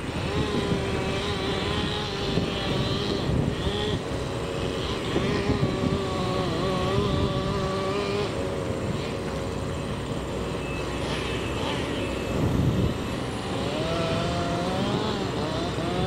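Logging truck's engine running as the truck drives slowly with its empty log trailer; the engine note rises about two seconds before the end.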